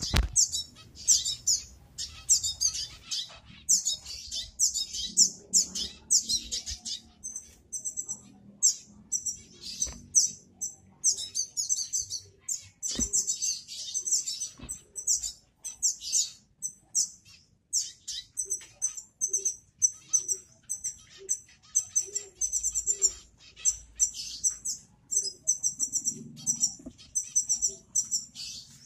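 Small aviary finches chirping: many short, high chirps, often in quick doubled notes, going on without a break.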